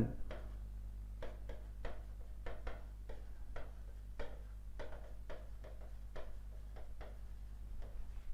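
Light, irregular taps and clicks of a pen writing out a sentence, roughly two to four a second, over a steady low electrical hum.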